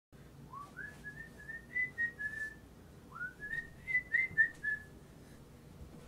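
A person whistling a short tune twice: each phrase slides up into a quick string of notes.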